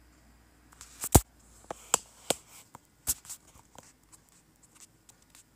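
Handling noise from the recording device: a run of irregular clicks and knocks, with two louder knocks about a second in and about three seconds in, thinning to faint ticks near the end.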